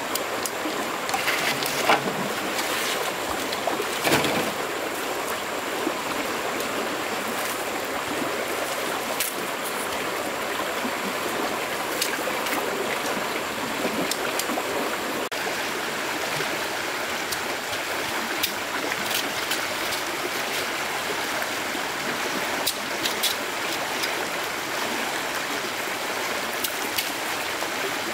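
Steady rushing of a flowing stream, with a few short knocks or clicks scattered through it.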